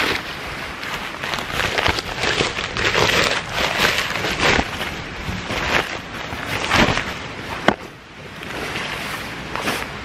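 Rustling of a Therm-a-Rest NeoAir XTherm sleeping pad's fabric as it is unrolled and flapped out flat, in irregular bursts, with one sharp click about three quarters of the way through.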